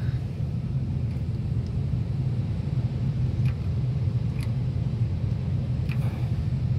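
A steady low rumble, with a few faint clicks and taps from a gas water heater's control knob being pushed down and turned.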